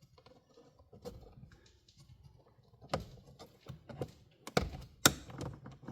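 Clicks, scrapes and knocks of a pleated cabin air filter being flexed and pushed into its plastic housing behind the glove box, with a sharp knock a little after five seconds in.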